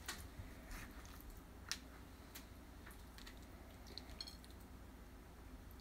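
Faint, scattered clicks and taps of a silicone ladle scooping potato salad onto a plate. About half a dozen light ticks sit over quiet room tone.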